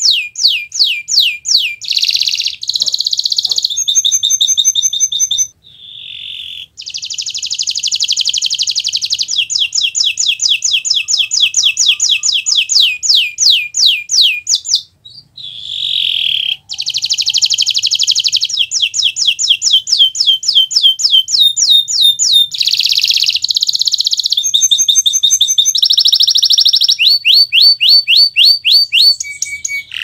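Domestic canary singing a long, loud song made of fast trills: each run repeats one short note many times a second before switching to a new note type. The song breaks off briefly twice, about five seconds in and about halfway.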